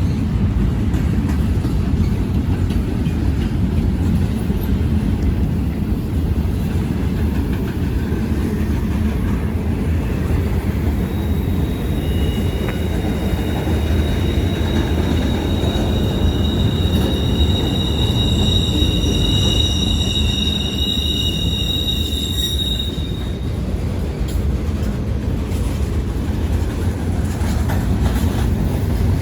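A long freight train's cars rolling past with a steady low rumble. From about eleven seconds in, a high, steady wheel squeal rises over it for roughly twelve seconds, then fades.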